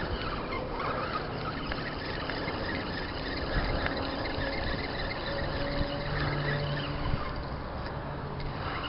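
Fishing reel being cranked to retrieve a lipless crankbait, with a steady rush of wind on the microphone.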